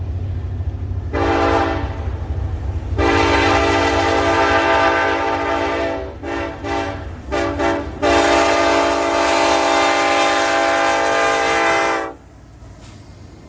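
Ferromex SD70ACe lead locomotive's horn sounding loud over the low rumble of the passing train: a short blast about a second in, a long blast, a quick run of about four short toots, then a final long blast. The horn cuts off abruptly about twelve seconds in, and the rumble drops away with it.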